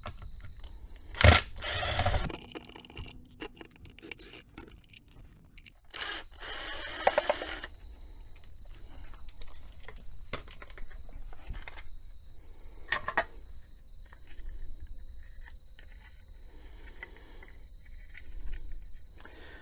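A cordless drill run in two short spells, about a second in and again about six seconds in, backing screws out of a plastic tap timer housing. Scraping and handling of plastic parts comes between the spells, with a sharp click near the end.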